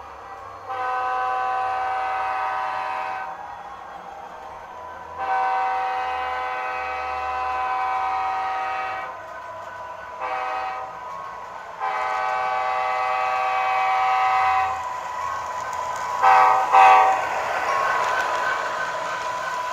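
Sound decoder of an HO-scale SD80MAC model diesel (Tsunami 2) sounding its air horn through the model's small speaker in the grade-crossing pattern: long, long, short, long. Two short, louder horn blasts follow near the end, then a bell rings, with the low diesel engine sound underneath.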